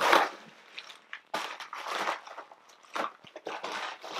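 Plastic packaging crinkling and rustling in irregular bursts as a package is handled and opened.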